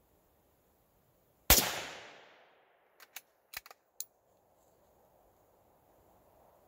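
A single shot from a Savage Model 93G bolt-action rifle in .22 Magnum (.22 WMR), its report dying away over about a second. About a second and a half later comes a quick run of five metallic clicks as the bolt is worked to eject the case and chamber the next round.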